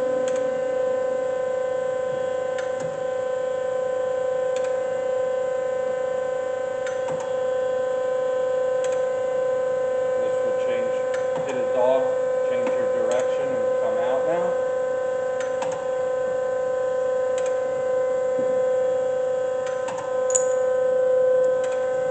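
Doall D-6 hydraulic surface grinder running with its spindle and hydraulics on and the table feeding back and forth: a steady hum with one strong tone and several fainter ones above it, with faint clicks every couple of seconds.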